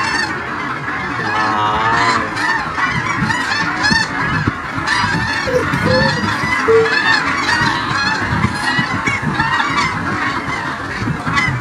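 A large flock of geese calling together: many overlapping honks forming a continuous chorus.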